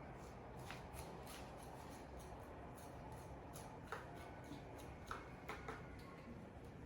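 Faint handling noises: a scattered series of light clicks and taps over a steady low hum, the sharpest about four and five seconds in.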